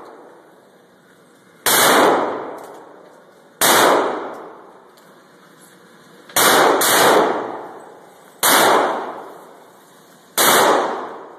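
Six shots from an HK45 .45 ACP pistol fired at an uneven pace, two of them in quick succession, each followed by a long echoing decay in an indoor shooting range.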